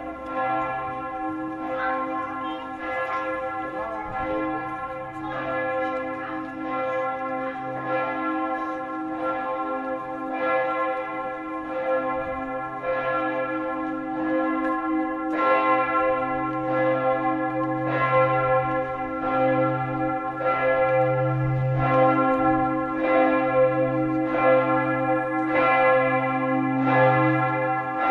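The largest bell (bell 1) of Würzburg's Neumünster ringing alone in its swing, its clapper striking about every one and a quarter seconds, each stroke ringing on over a deep, sustained hum. This is the Vorläuten, the single-bell preliminary ringing that calls people to the service.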